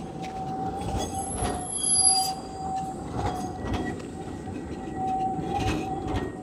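Škoda 15T tram passing close by, its wheels squealing on the rails in a steady high whine that is loudest about two seconds in. A few brief knocks sound over the low rumble of the tram.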